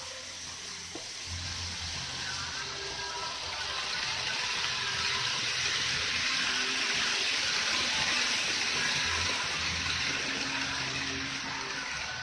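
Model of the JR East Hokutosei sleeper train running past on layout track: a steady rushing of wheels on the rails that grows louder as the blue coaches pass and eases off near the end.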